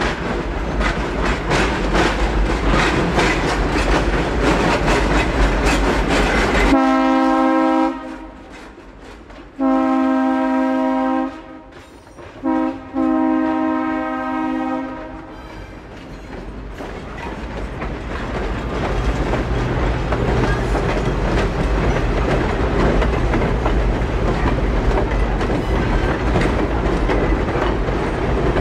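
A diesel switcher, which the uploader tags as an Alco S-2, hauls passenger coaches past: engine rumble and wheels clicking over rail joints. About seven seconds in, the locomotive's horn sounds a long, long, short, long pattern, the standard grade-crossing signal. Then the coaches roll by with steady clickety-clack that builds toward the end.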